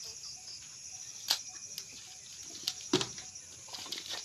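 Steady high-pitched insect buzz with some bird sounds in the background, broken by two sharp knocks about a second and three seconds in, the second one with a duller thud under it.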